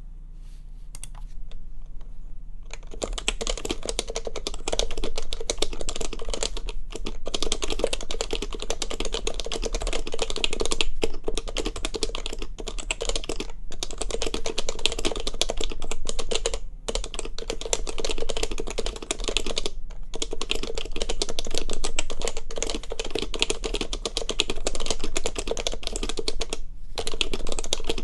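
Fast, continuous typing on an HHKB Professional Classic keyboard with Topre switches, fitted in a heavy metal case. A few single keystrokes come first, then dense typing starts about three seconds in, broken by a few brief pauses.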